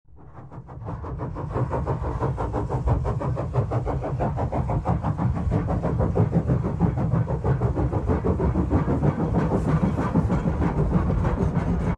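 A train running on the rails, fading in over the first second or two into a fast, even rhythm, then cutting off abruptly at the end.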